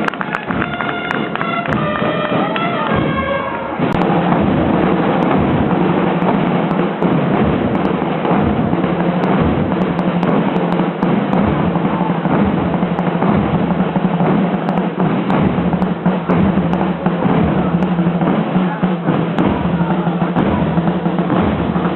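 Procession band music: a melody on wind instruments for the first few seconds, then massed drums beating steadily for the rest.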